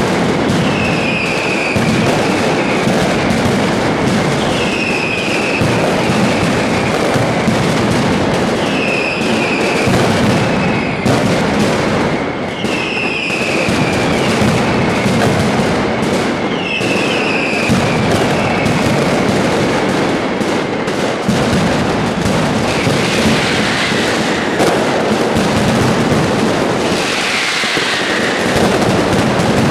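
Mascletà firecracker barrage: a dense, unbroken rattle of masclets going off in rapid succession, with a short falling whistle from the fireworks about every four seconds.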